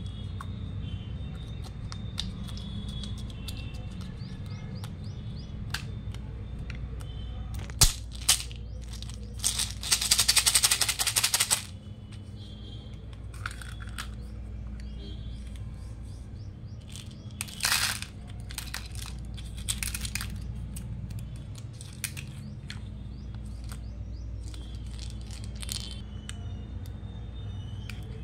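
Hands handling plastic toy capsules and a slime jar: scattered clicks and crackles, with a loud rapid crackling rattle lasting about a second and a half near the middle and a shorter one later, over a steady low hum.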